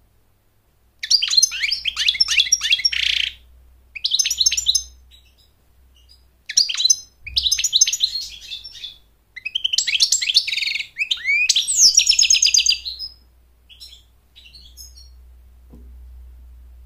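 European goldfinch singing: rapid, high twittering and trilling phrases in four bursts, each one to three seconds long, separated by short pauses. It falls nearly quiet near the end, apart from a few faint notes.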